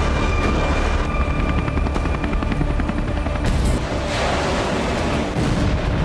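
Loud, steady engine-like rumble that cuts in suddenly, with a fast crackle over it and a faint whine in the first second or so.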